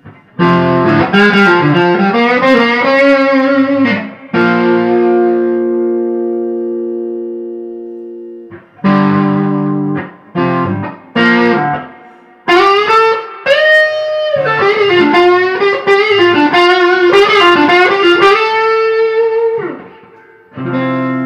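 Electric guitar played through a Mosky Silver Horse overdrive pedal with all its knobs at 12 o'clock: single-note lines with string bends, chords left to ring out and fade, and short stabbed phrases, with brief pauses between them.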